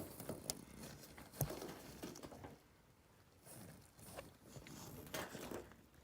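Faint handling noise: scattered light clicks and rustles, with one sharper click about a second and a half in.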